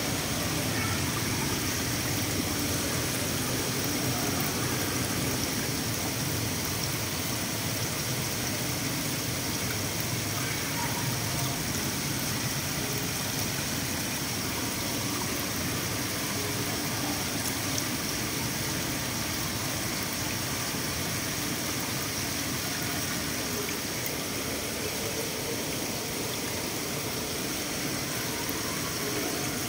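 Water pouring into a koi pond, a steady splashing and churning at the surface.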